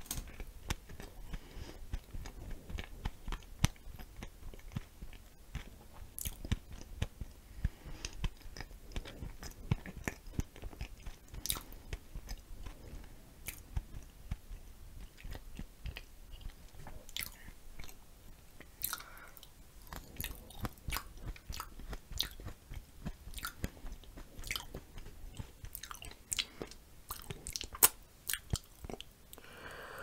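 Close-miked chewing of a mouthful of glazed donut, whipped cream and blueberries, with many small wet mouth clicks.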